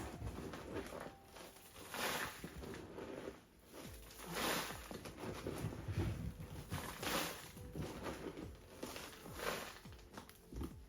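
Granular bonsai soil being worked into a pot around the roots: short gritty rustling and scraping bursts every second or two.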